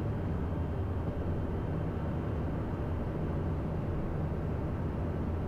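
Steady drone of engine and airflow noise inside a Citation business jet's cockpit on final approach, with a low hum and no distinct knocks.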